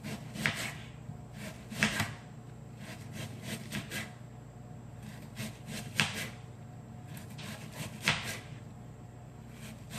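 Kitchen knife cutting vegetables on a cutting board: a few scattered knocks and clicks of the blade on the board, with light rubbing and handling between them.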